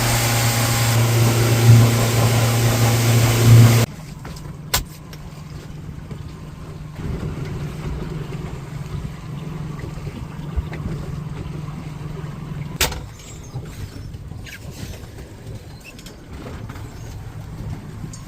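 Boat engine running loudly with a steady low drone, which cuts off abruptly about four seconds in. A quieter low hum follows, with a couple of sharp clicks.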